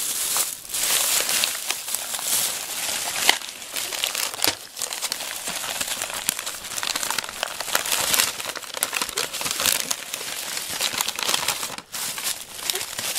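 Plastic food packets crinkling and rustling as they are handled and shifted about. The sound is a continuous run of crackly rustles with scattered sharper crinkles.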